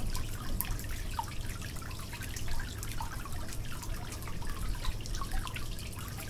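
Many small scattered drips and pops, some with short rising blips, over a steady low hum.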